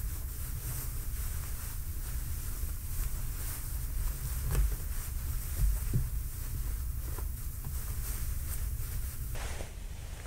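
Cotton kitchen towel being folded and rolled by hand on a tabletop: cloth rustling and brushing against the surface, with soft thumps about four and a half and six seconds in, over a steady low rumble.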